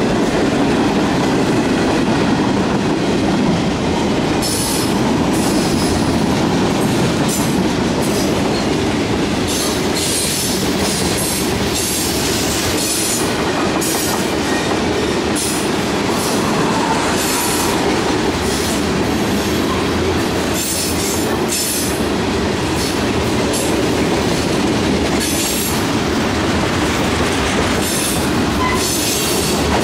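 Freight cars rolling past on the track, a loud, steady rumble of steel wheels on rails with a clickety-clack. Short, high screeches from the wheels come and go from about four seconds in.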